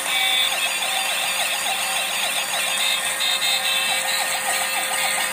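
Electronic siren sound from a battery-operated toy police-style pickup truck: a fast up-and-down warble of about five sweeps a second. It loosens in the middle and picks up its quick sweeping again near the end.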